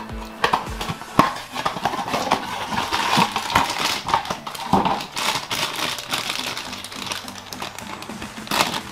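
Cardboard blind box being opened and the glossy foil bag inside crinkled and handled, a rapid irregular crackling, then scissors cutting into the foil bag near the end.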